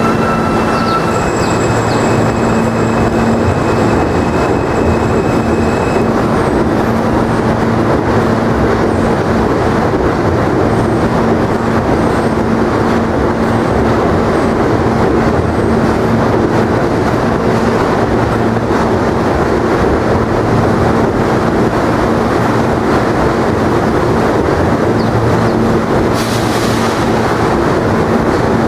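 R160A subway train running slowly alongside the platform: a steady rumble of wheels on rail with a constant hum. A few high whining tones sound in the first few seconds, and there is a short hiss near the end.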